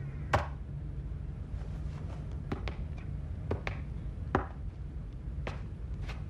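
Short sharp taps and knocks at irregular spacing, the loudest about half a second in, as a peaked cap is put down on a desk and a man walks across the room. A steady low hum runs underneath.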